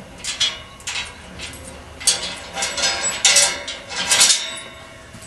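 A padlock and chain rattling against the steel bars of a gas-cylinder cage gate as it is unlocked by hand, in an uneven string of metallic clinks and jingles, thickest from about two to four and a half seconds in.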